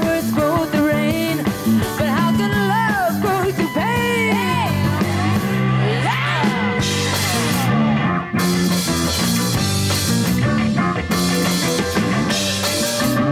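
Rock music: a woman sings lead over electric guitar and drums, her voice gliding up and down through the first few seconds. From about halfway on, cymbal crashes come in and out hard.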